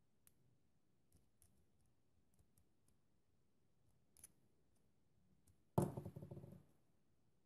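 Small plastic building-brick parts handled during assembly: faint scattered clicks, a sharper click about four seconds in, then a short louder plastic clatter near the end that dies away within about a second.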